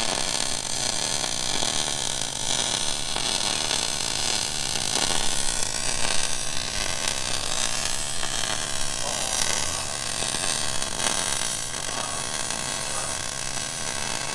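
MIG welder laying a bead on steel plate: a steady arc buzz with a low electrical hum under it.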